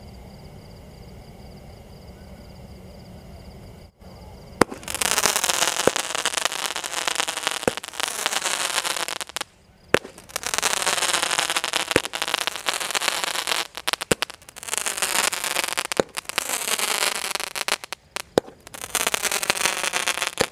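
A Mori 12-shot jhumar aerial firework cake firing. After a quieter first four seconds or so, shots go off one after another, each starting with a sharp pop and followed by a few seconds of loud hissing, crackling spray. There are four such bursts about every four to five seconds.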